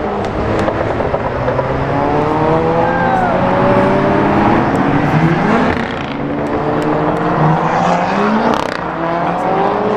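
Several performance-car engines running hard on a race track, their notes climbing and dropping as they accelerate, brake and change gear, with more than one car heard at once.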